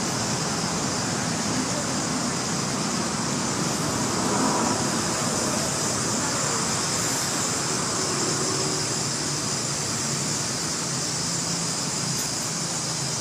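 Steady outdoor background noise: an even hiss with a low rumble underneath, unchanging and without distinct events.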